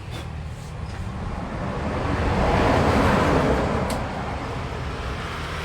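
A road vehicle passing by: a rushing noise that swells to a peak about three seconds in and fades away, over a steady low hum, with one short click near the end.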